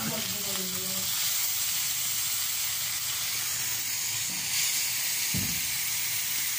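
Fish sizzling in hot oil in a frying pan on a stove, a steady hiss. There is one low, dull thump about five seconds in.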